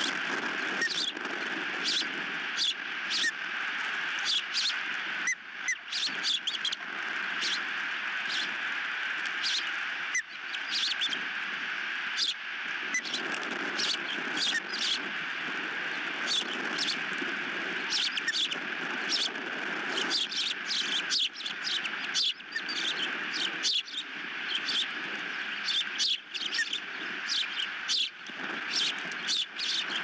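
Ospreys calling in short, sharp chirps, repeated irregularly every second or so, over a steady rushing background of wind.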